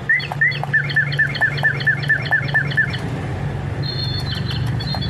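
Lovebirds chirping: a quick run of about ten repeated chirps, about four a second, then a few higher chirps near the end, over a steady low hum.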